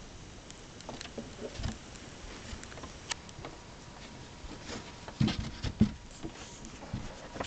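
Scattered light clicks and rustles with a few louder knocks between five and six seconds in: handling noise from the camera and from someone shifting inside an enclosed hunting stand.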